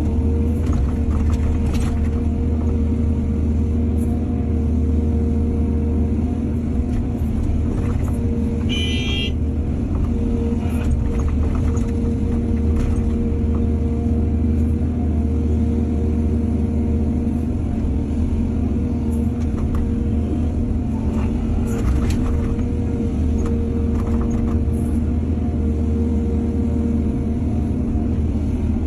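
Excavator's diesel engine running steadily under load, with scattered knocks and clanks and a brief high-pitched squeal about nine seconds in.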